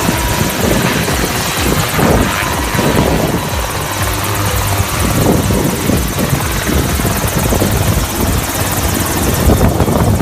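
Helicopter running loud and close, the rotor and engine noise continuous with a fast, even beat.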